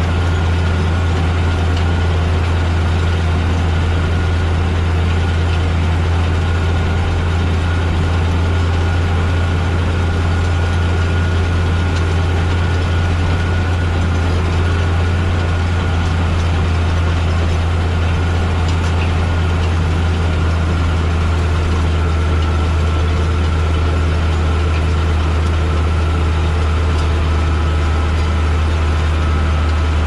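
Case CS150 tractor engine running steadily under load while pulling a power harrow and seed drill combination, heard from inside the cab. A thin, steady high whine sits above the low engine note.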